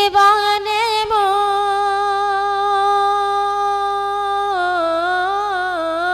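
A boy singing a naat unaccompanied, holding one long steady note on the word "deewane" for about three and a half seconds, then turning it with a wavering melodic ornament near the end.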